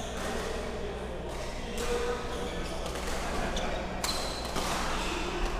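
Badminton rackets striking a shuttlecock during a rally: a few sharp smacks a second or two apart, the clearest about four seconds in, over the reverberant murmur of voices in a large sports hall.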